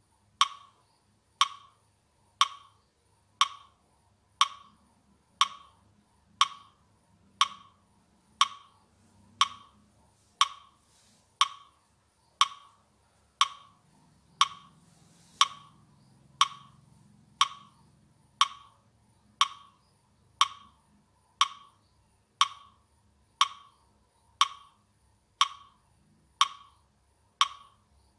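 A steady ticking beat, about one sharp tick a second, sounded as the count for paced slow breathing: each inhale and exhale is timed in a number of beats.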